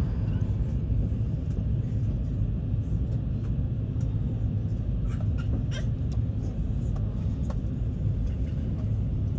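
Steady low rumble of an airliner's cabin at the gate, with a few faint clicks around the middle.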